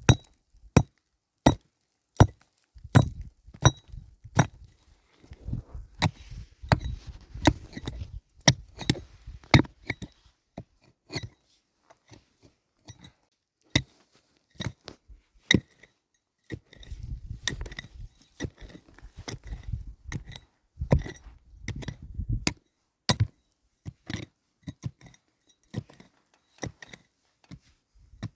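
Repeated sharp blows of a tool on wood, about one a second, some with a clink, with stretches of low rough scraping noise between them.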